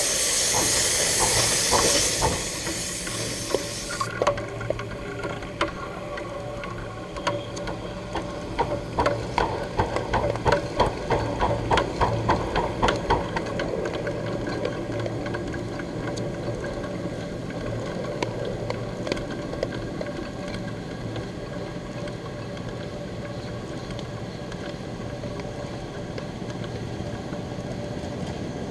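1/8-scale live-steam locomotive: a loud hiss of steam that cuts off about four seconds in, then a quick run of rhythmic beats for several seconds, settling into a steady running sound.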